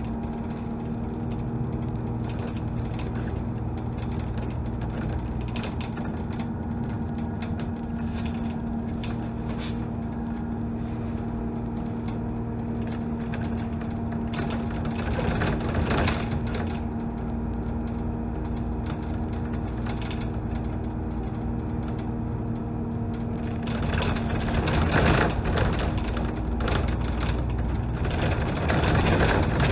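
Dennis Trident double-decker bus on the move, heard from on board: a steady engine and driveline hum with a constant whine, and the rattle of the bus's body and fittings. It grows louder and noisier briefly about halfway through and again over the last six seconds.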